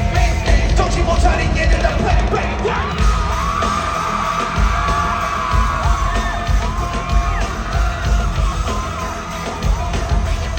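Live pop music with a heavy bass beat played loud over an arena sound system, with the crowd screaming and cheering over it from a few seconds in.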